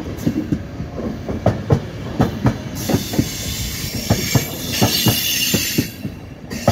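ÖBB Nightjet passenger coaches rolling past as the train pulls out, their wheels knocking over rail joints and points in a steady clickety-clack. A high hissing wheel squeal joins about three seconds in, dips briefly and returns near the end.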